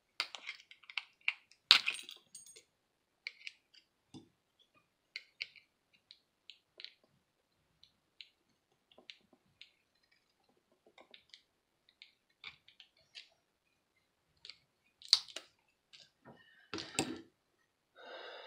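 Scattered small clicks and scrapes of a screwdriver and fingers working a walkie-talkie's circuit board loose from its plastic housing, with a few sharper clicks.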